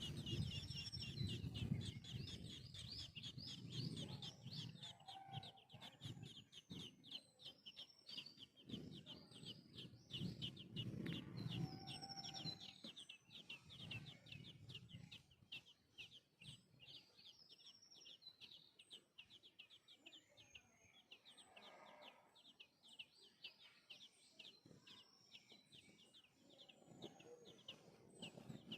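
Faint bird calls: a fast, steady run of short high chirps, several a second, with lower clucking sounds now and then.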